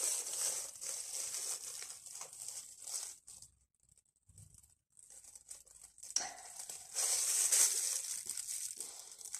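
Disposable plastic glove crinkling and rustling as a gloved hand works a squeeze bottle of tie-dye. It goes quiet for a few seconds in the middle, then starts again.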